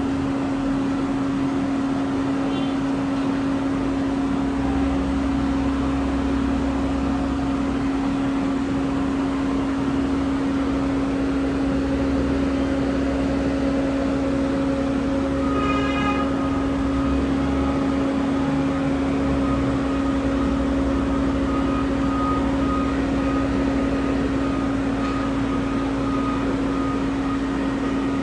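Airport apron noise: a steady, even-pitched hum from a parked jet airliner and its ground equipment, with a baggage tractor's engine running as it tows a train of cargo containers. About halfway through a short horn-like tone sounds, then a faint beep repeats until near the end.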